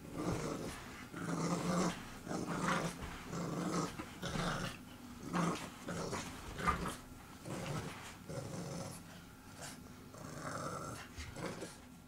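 English Bulldog puppy growling while tugging on a toy in a game of tug of war: a string of short growls, about one a second.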